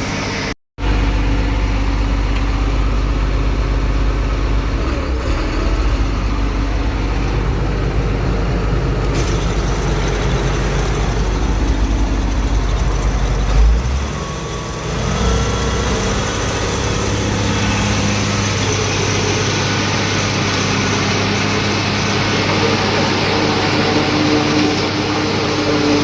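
Tractor engine running steadily under load while chopping corn silage with a forage harvester. The drone drops out briefly less than a second in and shifts in pitch about fourteen seconds in.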